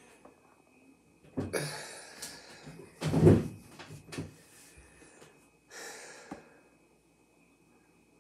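A person walking back to a chair and sitting down: scuffs, rustling and thumps, the loudest thump about three seconds in, then a short rustle around six seconds.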